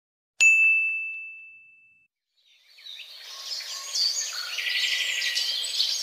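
A single bright ding, struck once about half a second in and ringing out over a second or so. After a short silence, birds start chirping and singing, a dense chorus of many quick calls that runs to the end.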